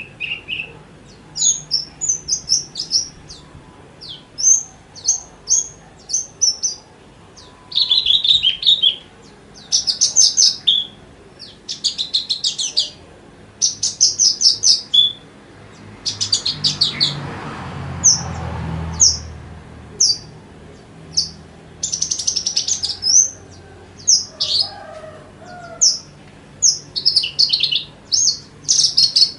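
Branjangan (Javan bush lark) singing: a rapid string of varied chirps and buzzy trills in short phrases with only brief gaps between them. A short low rushing noise sounds about halfway through under the song.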